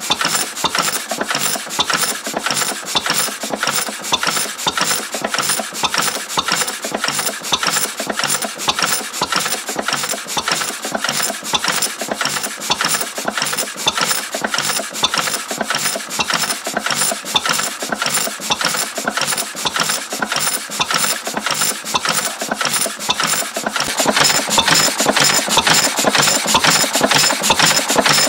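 Lister B single-cylinder stationary engine running with a fast, even mechanical beat, growing a little louder near the end.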